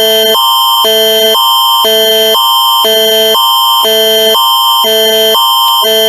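Canada's Alert Ready attention signal: a loud electronic alarm alternating between a high and a low chord every half second, with a steady high tone running through it.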